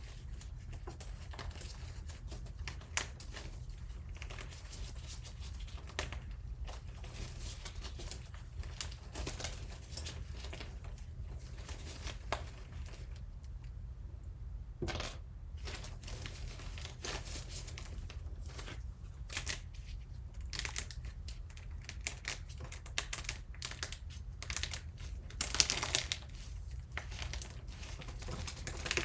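Close-up crinkling, crackling and tearing handling sounds made of many small sharp clicks in an uneven stream, with a louder flurry near the end.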